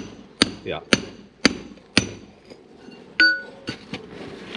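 Steel bar striking brick and rubble: five sharp blows about two a second, then a single ringing metal clang about three seconds in. The bar is chipping loose a brick from under a clay drain pipe.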